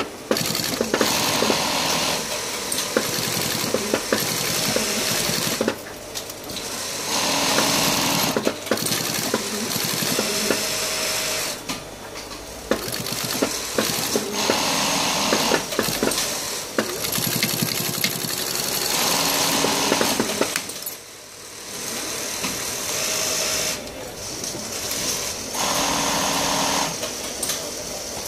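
Industrial sewing machine stitching in runs of a few seconds with a fast, even needle rhythm, stopping and starting again as the work is guided through, with brief changes in speed.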